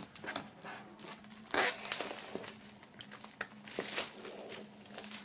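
Clear plastic shrink-wrap crinkling and crackling in short, uneven bursts as it is peeled off a vinyl LP's cardboard sleeve, the loudest crackle about a second and a half in.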